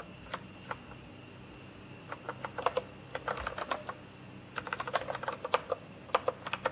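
Typing on a computer keyboard: a few lone keystrokes at first, then quick bursts of clicking from about two seconds in.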